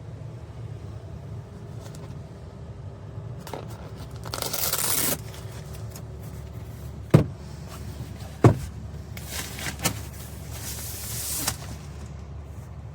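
Reflective fabric windshield sun shade being handled inside a car: two longer rustling, crinkling passes and two sharp knocks in between, over a steady low hum.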